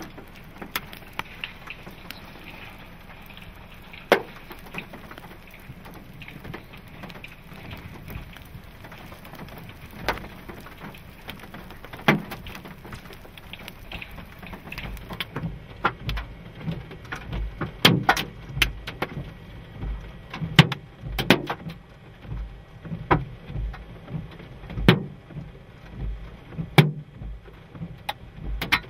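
Rain falling with hailstones striking hard surfaces: a steady hiss, with a few sharp knocks at first that come thick and fast in the second half.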